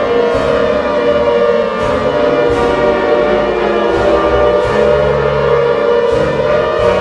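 Loud music overlaid with a wailing, siren-like tone that slides slowly in pitch, typical of a mock emergency-broadcast sign-off.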